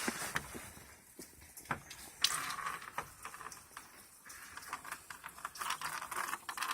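Scattered light clicks and knocks with short bursts of rustling: handling noise as things are moved about during work on the generator.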